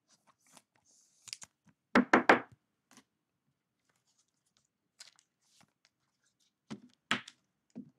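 Trading cards handled at a table: a card slid into a rigid plastic toploader, with light rustling and sharp plastic clacks and knocks as the holder and cards are tapped and set down, loudest as a quick cluster of three about two seconds in and again near the end.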